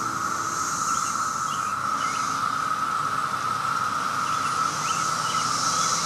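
Chorus of 17-year periodical cicadas droning steadily, a constant mid-pitched hum with a higher hiss above it that swells and eases.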